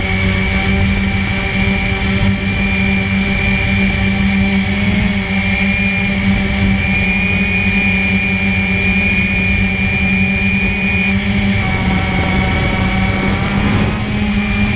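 A drone's electric motors and propellers whining steadily in flight, recorded on board. The motor pitch wavers for a few seconds near the end as the drone drops low over the grass.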